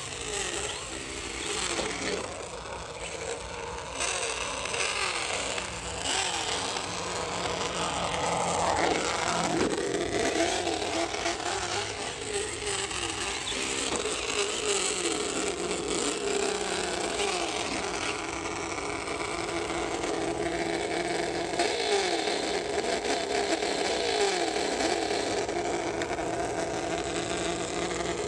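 Traxxas Slash VXL onboard sound system playing a recorded V8 truck engine through its speakers, the pitch rising and falling again and again with the throttle, over a steady noise from the RC truck itself.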